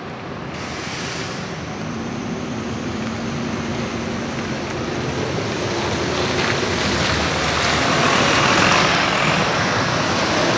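City buses driving past close by, their engines running with tyre noise on the wet, slushy road. The sound grows steadily louder as one bus passes and another comes up.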